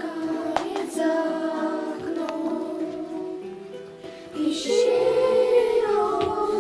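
Children singing a Russian Christmas song along with a recorded backing track. The singing gets louder about four and a half seconds in.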